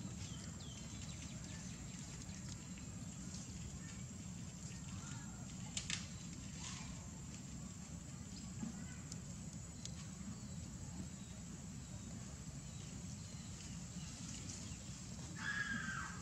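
Outdoor ambience: a steady low rumble with a few faint clicks, and a short high-pitched call about a second before the end.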